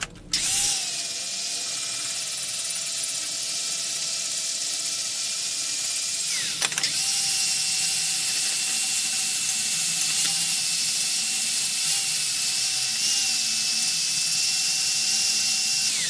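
Angle grinder with an 80-grit sanding disc starting up and running with a steady high whine while sanding corroded aluminum. Its pitch dips briefly and recovers about six and a half seconds in.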